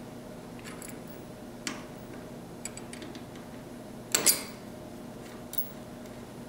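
Light metallic clicks and clinks of flat steel wrenches and a nut being worked on a threaded steering rod end, a few scattered taps with a louder double clink about four seconds in, over a faint steady hum.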